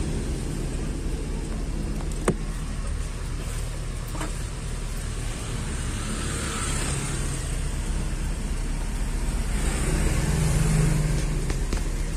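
Vehicle engine running at low revs, heard from inside the cab, with a sharp click about two seconds in. The engine note grows a little louder around ten seconds in.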